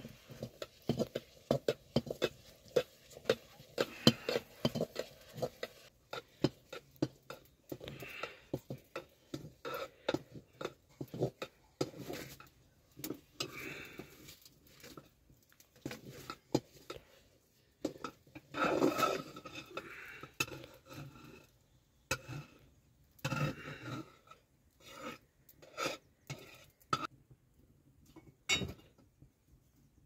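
Irregular clinks and clicks of metal objects knocking against each other, some sharp and loud, coming in quick clusters with short gaps.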